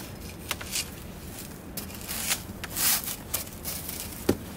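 Rustling of tent fabric and scattered clicks and knocks as a person climbs a telescopic ladder into a rooftop tent, with a louder rustle just under three seconds in and a sharp knock on the ladder near the end.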